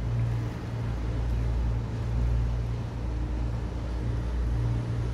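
A large ship's engine running past, a low steady hum.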